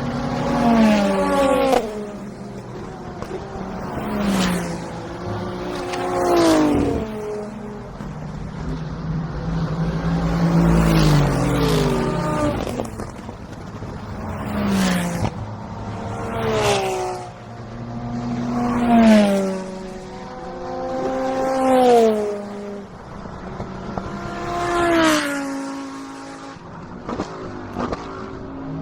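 Race cars passing at speed one after another, about nine in a row, each engine note rising in loudness and dropping in pitch as the car goes by.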